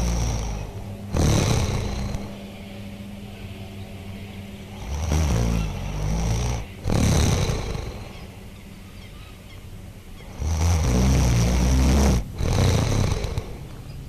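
Experimental noise music: loud surges of harsh, rumbling noise come in pairs roughly every five seconds, over a quieter bed of steady low drone tones.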